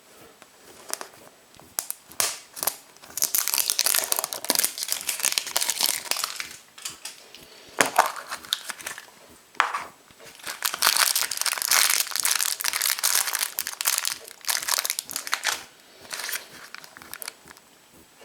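Foil wrapper of a chocolate surprise egg being crinkled and peeled off by hand, in long bursts of crackling with short pauses between, and a sharper crack about eight seconds in.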